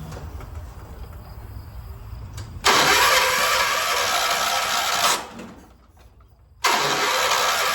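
A 1976 John Deere 300 lawn tractor being cranked on its starter twice, without catching: a loud grinding crank starts suddenly about three seconds in, winds down after about two and a half seconds, and starts again after a brief pause. This is a hard start, with a weak, dying battery behind it.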